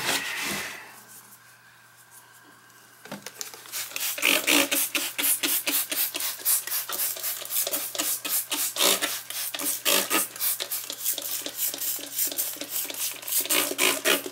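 Brief rub of paper towels on the tile, then a trigger spray bottle of green cleaner pumped rapidly, a quick run of short squirts at about four a second starting a few seconds in.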